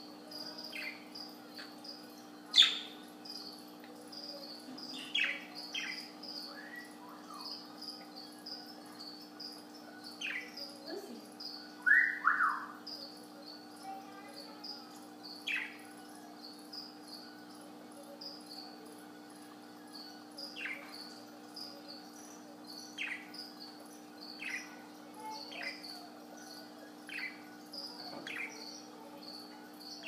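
Pet budgerigar giving short, scattered chirps, with a sharp louder call a few seconds in and a loud falling double call about twelve seconds in. Under it runs a steady electrical hum and a faint high chirp repeating about twice a second.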